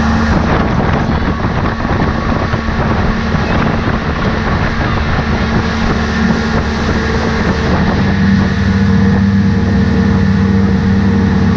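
Evinrude outboard motor running steadily at speed, with the rush of the boat's wake and wind buffeting the microphone. The engine tone changes slightly about eight seconds in.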